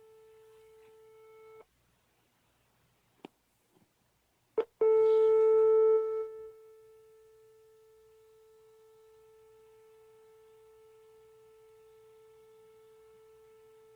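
A 440 Hz test tone played on an HTC Nexus 9 tablet, steady. It cuts out about a second and a half in, and a few sharp clicks and pops sound in the gap. It comes back loud near five seconds and drops to a steady lower level by six and a half seconds. The clicks and pops are the tablet's audio defect, which a replacement unit has not cured.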